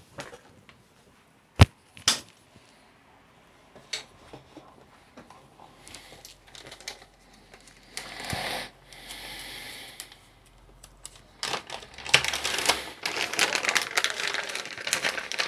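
Board game components in plastic packaging being opened by hand: a few sharp clicks and taps, then plastic crinkling and rustling that grows busier near the end.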